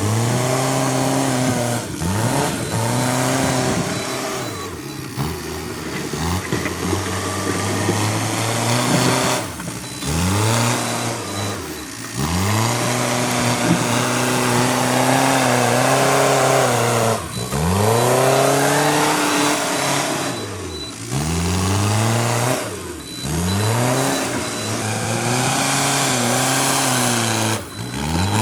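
Backhoe loader's diesel engine revving up and down repeatedly as it works, its pitch climbing and falling again every few seconds, with a few short, abrupt drop-outs.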